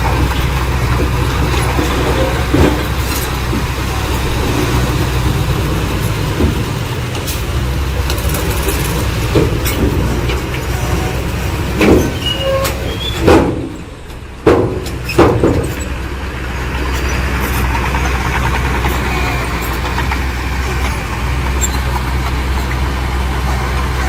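Heavy diesel engine of earthmoving machinery running steadily, with a few sharp clanks and knocks around the middle.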